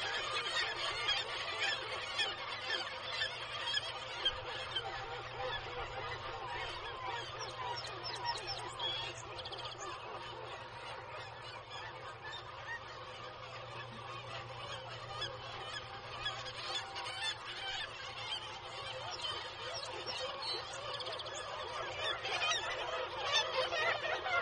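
A cliff colony of black-legged kittiwakes calling: a dense, continuous din of many overlapping calls. It thins a little midway and swells again near the end.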